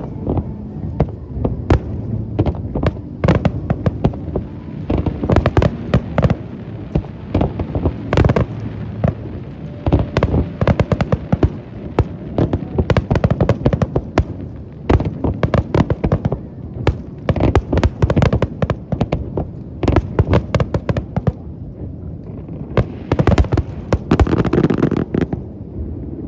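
Aerial fireworks going off in a rapid, unbroken string of bangs, packed most densely near the end.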